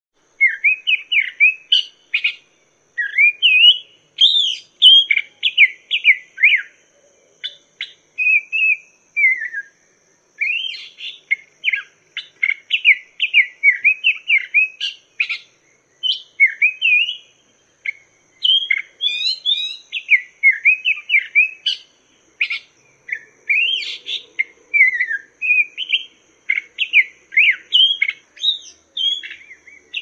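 Black-throated laughingthrush (poksay mandarin) singing: long runs of quick, clear whistled notes that swoop up and down, broken by brief pauses between phrases.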